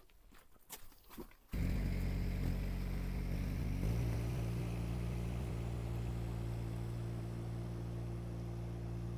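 A few faint clicks, then about one and a half seconds in the Kymron XH20D mini excavator's Yanmar diesel engine comes in abruptly and runs steadily, settling into an even idle a couple of seconds later.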